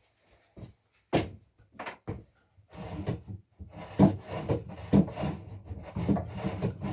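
Two wooden knocks, then a homemade vise's dry screw threads being turned, rubbing and creaking. The threads are unlubricated.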